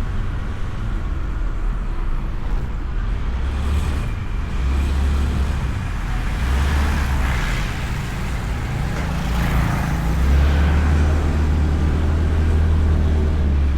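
Motorbike on the move, heard from a microphone inside the rider's helmet: a steady low rumble of engine and wind, with road traffic that swells twice about halfway through.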